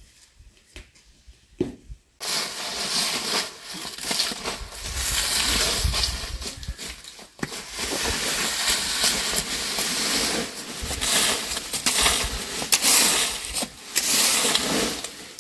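Dry fallen leaves rustling and crunching as children scoop, kick and scatter them, starting suddenly about two seconds in and going on in uneven surges.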